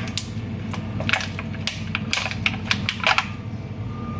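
Plastic tray of frozen onion cubes crackling and clicking as it is flexed and the cubes are popped out, a quick irregular run of sharp clicks.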